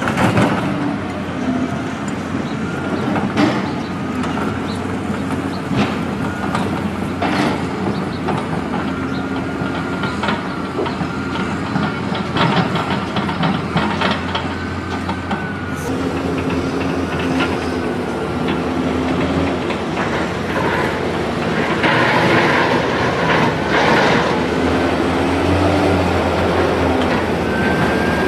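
Construction-site noise: diesel engines of heavy machinery running steadily, with irregular metallic clanks and knocks and a faint wavering whine. The noise grows louder in the second half.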